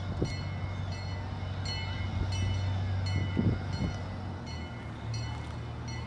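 Miniature zoo train running along its track with a steady low engine hum, and light ringing clinks repeating every half second to a second.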